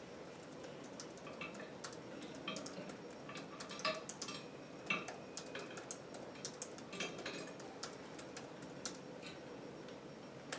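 Scattered light clicks and taps at an uneven pace, a few each second, from small hard parts being handled and set in place by hand.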